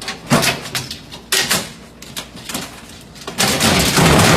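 Rustling and knocking in a refrigerator: a few short noisy bursts, then a longer, louder stretch of rustling near the end.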